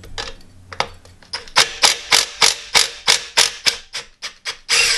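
Cordless impact gun hammering on a tight M8 assembly nut of a three-piece wheel, in quick sharp strokes about four a second, then a steady burst just before the end.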